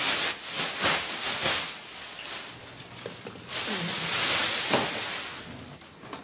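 Rustling and crumpling of bedding being bundled up and stuffed into a plastic bin, in two loud bouts about three seconds apart.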